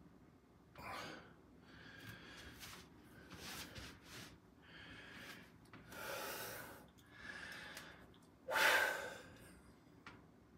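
A man breathing hard while holding bodybuilding poses: about seven sharp, breathy inhales and exhales, the loudest one near the end.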